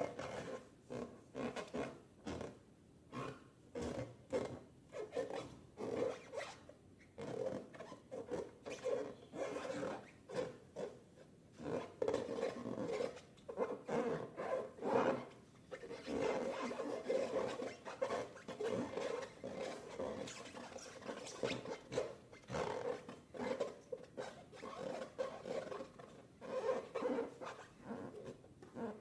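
Slime being worked by hand, a continuous irregular stream of wet squishing and crackling, busier and louder from about halfway in.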